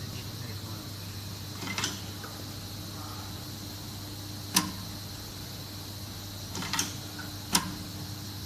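A steady low hum with four short, sharp mechanical clicks spread through it, the loudest about halfway through and another near the end.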